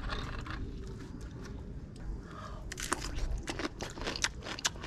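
Crisp crunching bites and chewing of a raw vegetable stick, the crunches starting a little over halfway through and coming in quick, irregular snaps.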